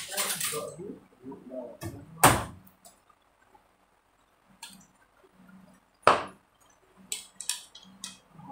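A few separate sharp clicks and light clinks, the loudest about two seconds in and about six seconds in, with smaller ones near the end.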